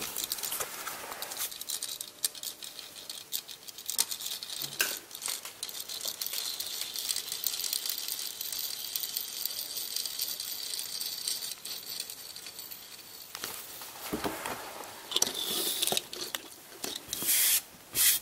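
Plastic Lego Ninjago spinners whirring as they spin on a hard tabletop: a steady high whir with scattered small clicks and knocks. In the last few seconds there is a run of louder clattering.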